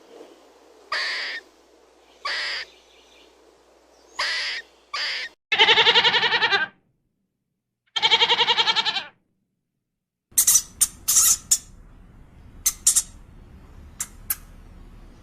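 Bird calls: a few short calls, then two longer pulsed calls, then a switch to a run of sharp, high chirps.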